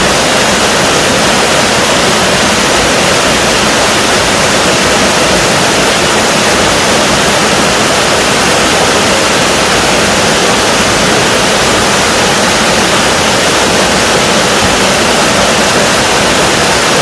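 Small waterfall in a mountain stream, water pouring with a loud, steady rush.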